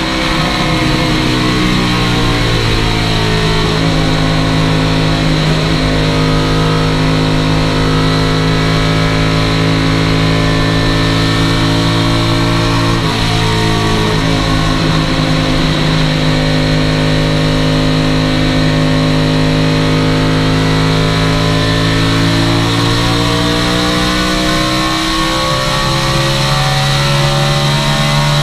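Chevrolet V8 stock-car engine at racing speed, heard from inside the cockpit: it pulls up through the revs in the first few seconds, then holds a steady high note at full throttle, easing off briefly near the middle and again near the end, over constant wind and road noise.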